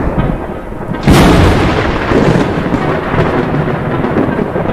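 Thunder sound effect: a sudden loud crack about a second in, followed by a long rumble that carries on under the channel logo intro.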